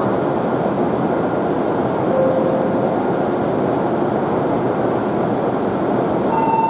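Steady whirring hum of an E7 series Shinkansen standing at the platform with its doors open. A brief faint beep sounds about two seconds in, and a steady electronic tone starts just before the end.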